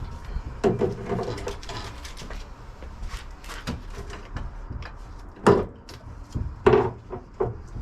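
Knocks and clunks of parts and tools being handled, an irregular string of sharp hits with two louder clunks about five and a half and just under seven seconds in.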